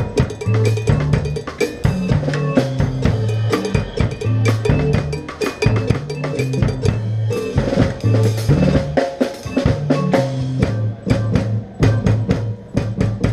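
Music driven by a drum kit: rapid snare, rimshot and bass drum hits over a low bass line that steps from note to note.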